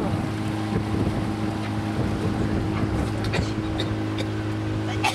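A boat's motor running at a steady low hum that holds one pitch, with wind on the microphone. A few short clicks or knocks come in the second half.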